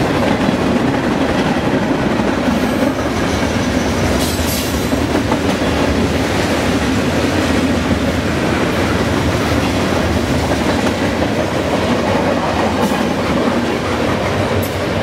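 Freight train cars rolling past at speed, their wheels running steadily on the rails in a continuous noise.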